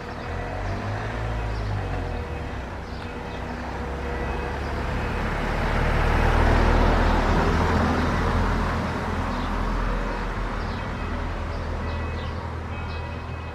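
A road vehicle passing by: a broad rushing noise with a deep rumble that builds to its loudest about halfway through and then fades away.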